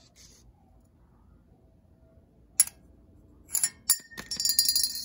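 Metal parts clinking: a sharp clink about halfway through, a few more light clinks, then a short ringing metallic clatter near the end.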